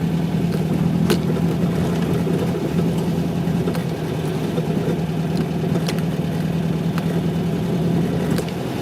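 Air-cooled flat-four engine of a VW Beetle 1600 running with a steady note, heard from inside the cabin. A few light clicks come through, the clearest about a second in.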